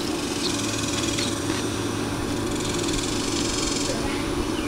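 A steady engine hum, with a few short bird chirps over it.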